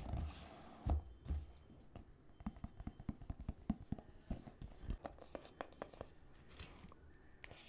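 Fingertips and fingernails tapping and scratching on a small cardboard AirPods box: a run of quick light taps, with two heavier knocks about a second in.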